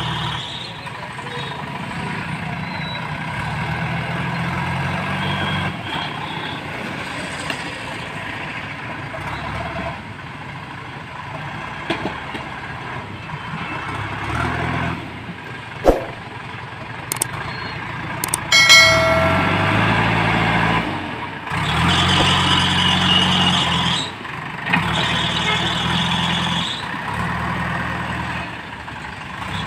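JCB backhoe loader's diesel engine revving up and down in repeated pulses as the front loader bucket scoops and lifts brick rubble. There is a sharp knock about sixteen seconds in and a ringing metal clang a couple of seconds later.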